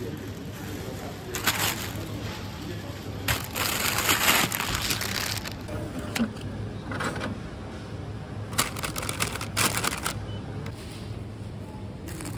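Supermarket background noise: a steady low hum with several short bursts of hissing, rustling noise, the longest about three to five seconds in.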